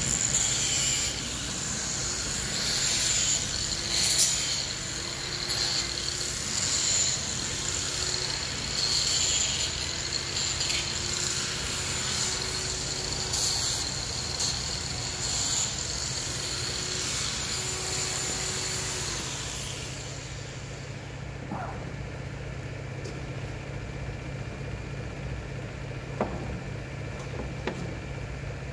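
Angle grinder fitted with a sanding disc running at a high whine and rasping across the surface of a pine slab, then switched off about two-thirds of the way through and spinning down. A steady low hum remains afterwards, with a few light knocks near the end.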